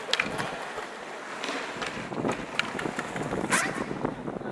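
Skateboard wheels rolling on smooth stone ground, with several sharp clacks of the board's tail and wheels hitting the ground during flatground tricks; the loudest clack comes about three and a half seconds in.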